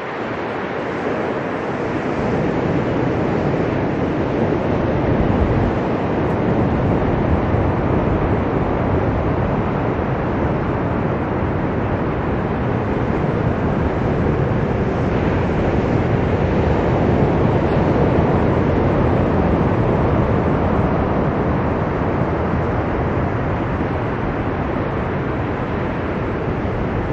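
Ocean surf breaking on a sandy beach: a steady, loud rush of waves that builds a little a couple of seconds in and then slowly swells and eases.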